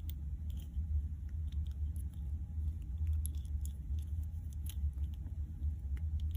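Scattered small clicks and taps of a fidget toy being handled, over a steady low rumble.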